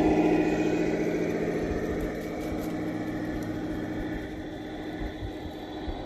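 A 1:14 scale Tamiya Knight Hauler RC semi-truck driving past with a steady engine-like hum, getting quieter over the first two seconds as it moves away.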